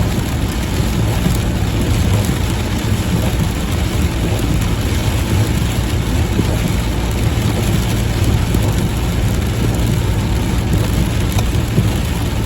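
Steady rain hissing over a continuous low rumble that holds level throughout, with no separate thunderclaps.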